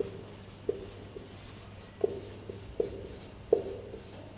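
Marker pen writing on a whiteboard: a run of short scratchy strokes and taps, one every half second to a second, as a word is written letter by letter.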